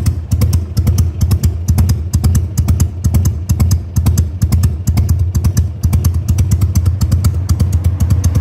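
Carbureted Harley-Davidson V-twin engine running steadily at low speed. Its exhaust beats come in an uneven, loping rhythm of about five or six pulses a second, with no revving.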